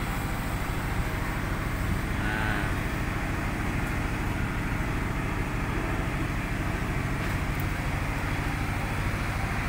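Komatsu PC200-8MO excavator's six-cylinder diesel engine idling steadily, a continuous low, even pulsing.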